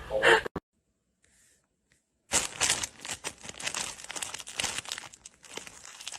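Crinkling and rustling, dense and crackly, starting about two seconds in after a short silence.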